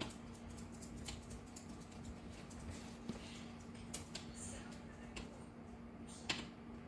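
Scattered light clicks and taps at uneven intervals, one louder tap near the end, over a steady low hum.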